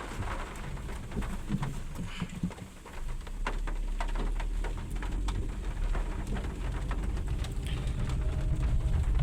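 Rain falling, with many scattered drop hits over a steady low rumble. It eases briefly between two and three seconds in.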